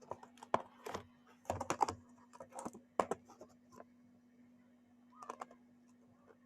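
Sour jelly candy packaging being handled, crinkling and clicking: a quick run of sharp crackles over the first three seconds or so, then a short cluster about five seconds in.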